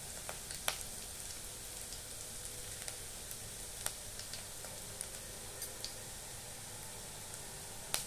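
Ginger, garlic, green chilli and cumin seeds frying in hot oil in a kadai: a steady quiet sizzle with a few sharp crackles scattered through it.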